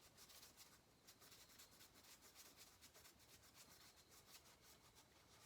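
Faint, quick back-and-forth scrubbing of an abrasive pad against a chainsaw's gasket surface, rubbing off old gasket residue.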